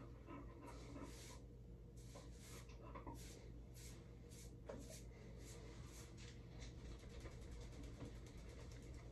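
Faint, scratchy rustling of hands working through wet, product-coated curly hair as the head is shaken, in short strokes about twice a second that stop about two-thirds of the way in.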